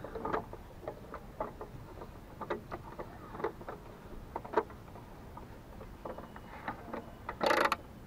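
Hand socket ratchet clicking irregularly as it turns out the headlight-aiming adjuster screw of a Tofaş Doğan headlight housing, with a short louder scrape near the end.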